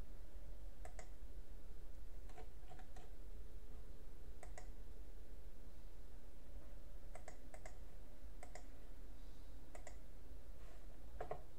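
Scattered clicks of a computer mouse and keyboard keys, often in quick pairs, about one every second or two, over a low steady hum.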